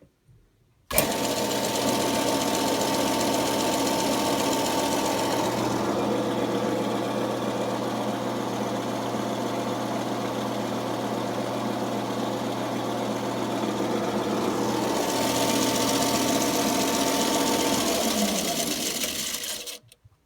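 A lapidary arbor switched on with a click about a second in and running loud with a steady mechanical hum and whir. This is the noise problem its owner is showing. Near the end it is switched off and winds down, its pitch falling before it stops.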